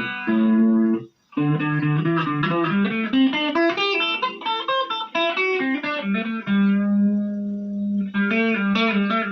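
Electric guitar played through a Marshall MG15GFX 15-watt combo practice amp with its chorus effect on: two short ringing chords, a brief break, then a run of picked single notes, one long held low note, and a few quick notes near the end.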